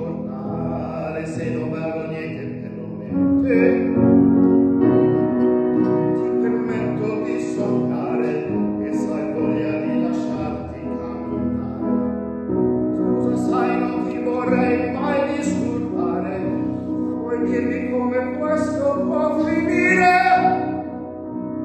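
A man singing an Italian pop ballad in a full voice, accompanied by a grand piano. The voice swells louder about three seconds in and peaks near the end before easing off.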